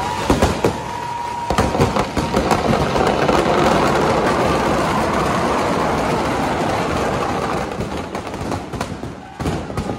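Firecrackers packed inside a burning Ravan effigy going off in a dense, continuous crackle of bangs and rushing noise, heaviest in the middle and thinning toward the end.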